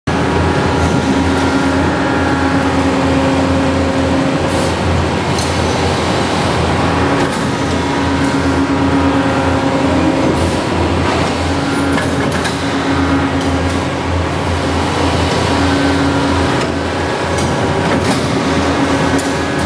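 Hydraulic forging press and rail-bound forging manipulator working a hot billet, with a steady low hum from the hydraulic drives. A pitched whine rises for a few seconds at a time and drops away again, about five times, with scattered sharp clicks and cracks between.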